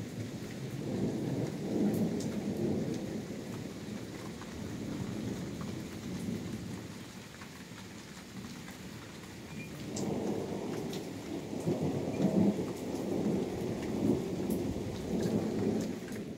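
Thunder rumbling over a steady hiss. One long rumble swells in the first few seconds and dies away, and a second long rumble builds about ten seconds in and carries on to the end.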